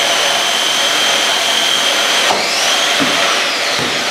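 FRC competition robot's electric motors running with a loud whine that rises and holds steady, dips about two seconds in, climbs again and then eases off, over a steady rushing noise.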